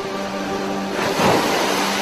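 An ocean wave washing in, rising to a rush about halfway through and fading, over soft music of long held notes.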